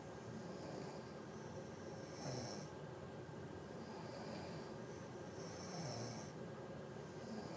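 Women snoring: rough snores mixed with hissing breaths, a new breath every second or two.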